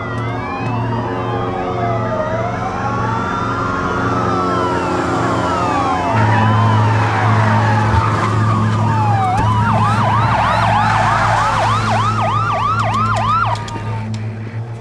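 Several sirens wailing at once over a steady low drone, their pitches sliding up and down out of step; about ten seconds in they switch to a rapid yelp, then cut off near the end.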